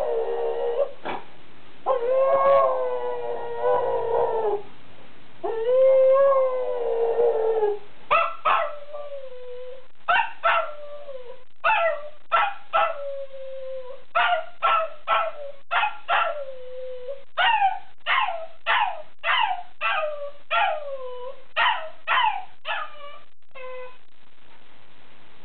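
A dog howling: three long drawn-out howls over the first eight seconds or so, then a string of short yelping howls, each sliding down in pitch, about one a second, that stop shortly before the end.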